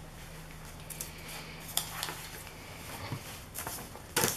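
Hands handling paper napkins and supplies on a tabletop: a few short light knocks and rustles, the loudest near the end, over a faint steady hum.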